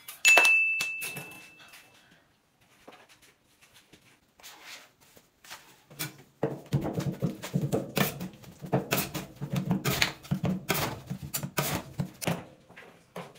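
A single bell-like ding rings out and fades. From about six seconds in, metal spatulas scrape and chop a cake on a stainless steel ice cream cold plate in rapid, uneven knocks.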